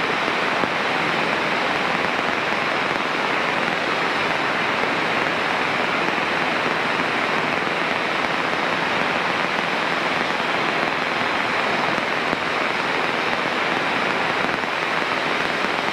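Steady, loud hiss of static on the aircraft's VHF radio, with no transmission in it: radio interference on the air-traffic-control frequency.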